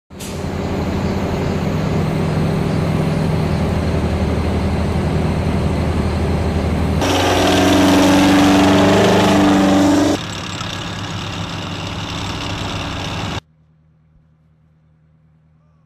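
Tracked armoured vehicle on the move: a steady engine hum, then a louder stretch about seven seconds in with whining tones as the road wheels and track run past, then steady running again. About thirteen seconds in it cuts off suddenly to a faint low hum.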